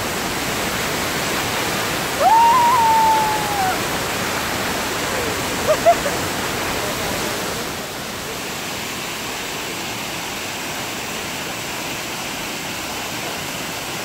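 Shaki waterfall's cascades pouring down a rock face: a steady rush of falling water that drops a little in level about eight seconds in. About two seconds in, a single drawn-out high call rises over the rush for a second and a half.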